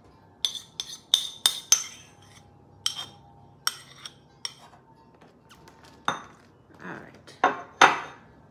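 Metal spoon clinking and scraping against a bowl while melted peanut butter is scraped out: about eight sharp, ringing clinks in the first four and a half seconds. Near the end come three longer scrapes as the spoon spreads the peanut butter in a ceramic baking dish.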